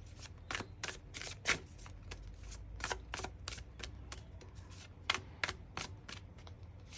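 Tarot cards being handled: a series of light, irregular flicks and taps of card on card.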